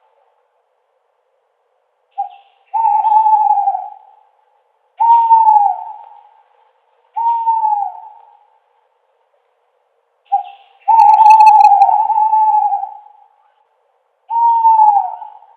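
An owl hooting: about five long hoots, spaced a couple of seconds apart, each dropping in pitch as it ends. Two of them are led by a short clipped note.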